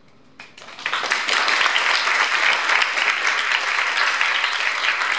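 Theatre audience applauding: a few scattered claps about half a second in, swelling within a second into full, steady applause.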